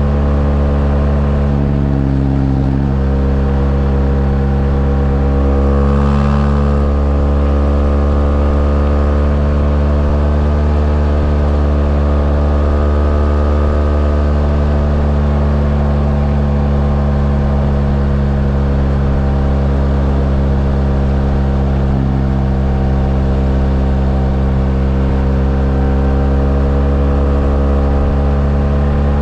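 BMW R1200GS LC's two-cylinder boxer engine running at a steady cruising pace, its pitch drifting only slightly up and down. There is a brief rush of noise about six seconds in.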